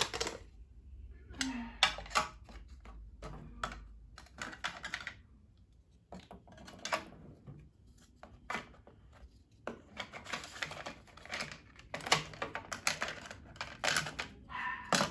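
Small diamond-painting tools and containers clicking and rattling as they are handled and set in place, in quick irregular clusters of clicks.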